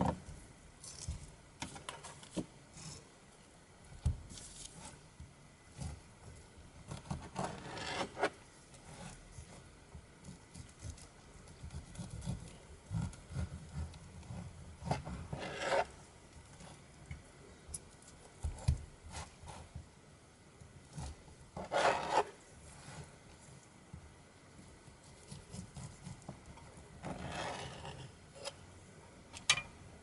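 Kitchen knife sawing through a whole pineapple on a plastic cutting board: about four short spells of rasping back-and-forth strokes, with light knocks of the fruit and knife on the board in between.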